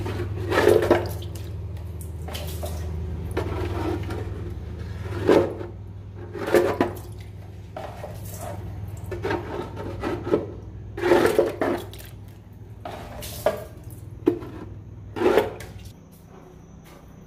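Wet scrubbing and water sloshing on the oily floor of a boat's engine bay, a scouring pad worked in a dozen or so irregular strokes. A steady low hum runs underneath and drops away near the end.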